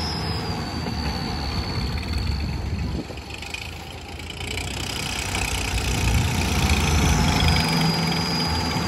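Mahindra 575 XP Plus tractor's four-cylinder diesel engine running with a high whistle from a whistle fitted in its silencer. The engine eases off about three seconds in, then builds again from about five seconds, the whistle returning as it does.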